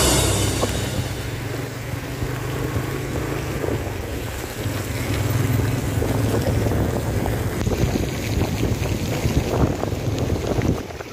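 Wind buffeting the microphone: a steady low rumbling rush with crackles, which drops away sharply near the end.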